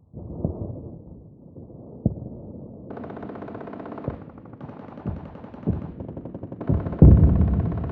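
Distant war sounds: explosions booming over a low rumble, joined from about three seconds in by bursts of rapid machine-gun fire. The heaviest boom comes about seven seconds in.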